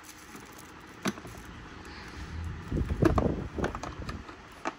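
Hand tools clicking and knocking against a hard plastic tool case as they are handled and fitted into its moulded slots. There is one knock about a second in, a cluster of clatter around three seconds and another click near the end.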